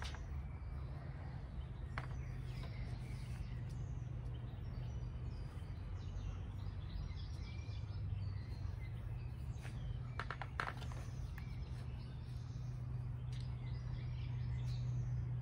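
Outdoor ambience: birds chirping now and then over a steady low hum.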